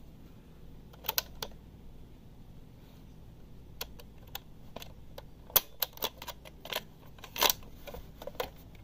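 Sharp plastic clicks and clacks from handling a Sony TCM-929 portable cassette recorder and pressing its piano-key transport buttons, about a dozen irregular clicks with most of them in the second half.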